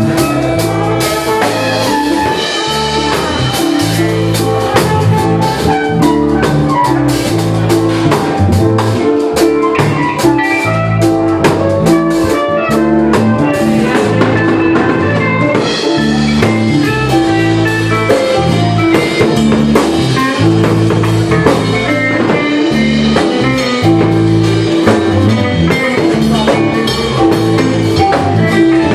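Live jazz fusion band playing: drum kit, guitar and a bass line of held low notes, loud and steady throughout.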